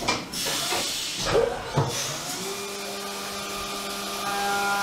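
CNC vertical milling machine running a contour pass, heard through its closed door: coolant spraying and rushing, with a few knocks in the first two seconds. About two seconds in, the spindle settles into a steady whine, and higher tones join it near the end.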